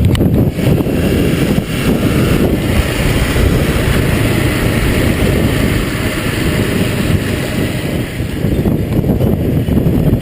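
Steady low rumble of wind buffeting the microphone, dense and unbroken.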